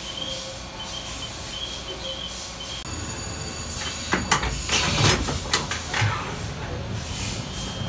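Haas VF-2SS vertical machining center with a faint steady high whine. About four seconds in comes a burst of sharp clicks and clunks with hissing air, lasting about two seconds.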